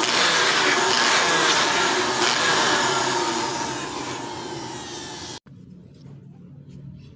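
Loud, steady rushing noise from a tool cleaning the motorcycle's rear drum brake parts. It fades a little before cutting off abruptly about five seconds in, leaving a quiet low hum and faint clicks.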